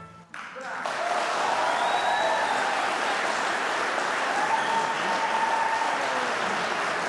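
Audience applauding, swelling up within the first second as the last note dies away, then holding steady.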